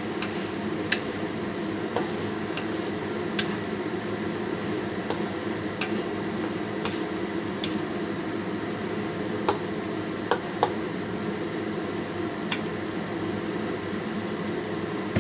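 A utensil stirring chunks of ox tail and vegetables in a nonstick wok, with irregular clicks and scrapes against the pan about once a second, over a steady low frying sound.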